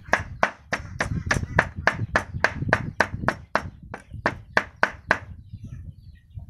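Meat cleaver chopping pork into mince on a round wooden chopping block: a quick, steady run of strokes, about four to five a second, that stops about five seconds in.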